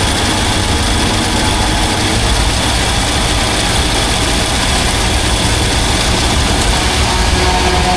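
Case IH Magnum 8920 tractor's diesel engine running steadily with a heavy low rumble; a few faint steady tones join in near the end.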